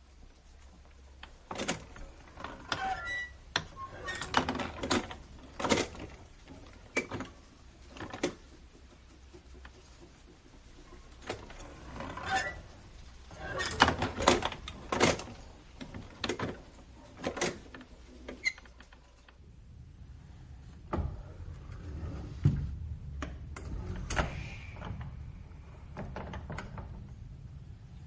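Wooden screen door on a metal spring hinge being worked again and again, banging and rattling against its frame with short squeaks from the hinge. From about twenty seconds in a low rumble comes up under fewer, scattered knocks, with one drawn-out squeak a few seconds later.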